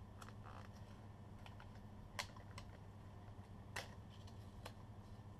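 A few light, separate clicks and taps from a small cardboard Nespresso capsule sleeve being handled, the sharpest about two seconds in and twice more near the end, over a faint steady hum.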